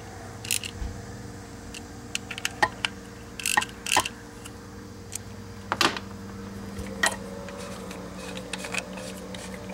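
Scattered light metallic clicks and clinks as a small-engine electric starter and a loose socket are handled and turned during reassembly, over a steady background hum.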